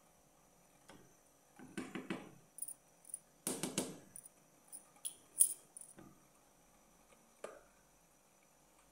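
Wooden spoon scraping and knocking against an aluminium soup pot as the soup is stirred and the spoon lifted out: a few separate scrapes and knocks, with short light clinks, the sharpest about five seconds in.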